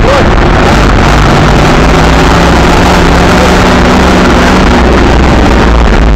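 Monster truck's engine running hard, heard very loud and distorted from inside the cab, with a steady engine note that comes through from about a second in until near the end.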